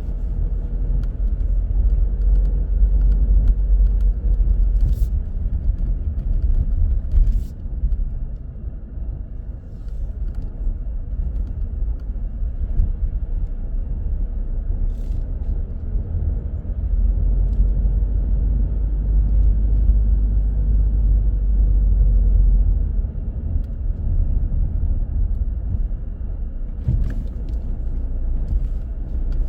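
Car driving through city traffic: a steady low rumble of engine and road noise that swells and eases, with a few brief sharp clicks or knocks.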